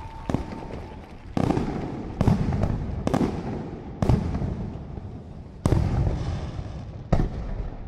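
Aerial firework shells bursting one after another: about seven sharp bangs at uneven intervals of roughly one to one and a half seconds, each followed by a rolling echo that fades slowly.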